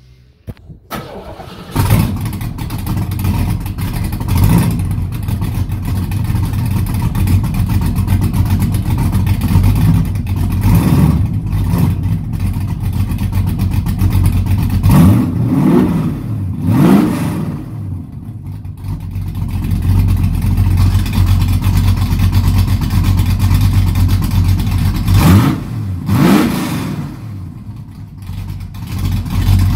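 Ford Mustang engine cranking and catching about two seconds in, then running loud through open exhaust cutouts with no mufflers. It is revved in pairs around the middle and again near the end, each rev rising and falling in pitch.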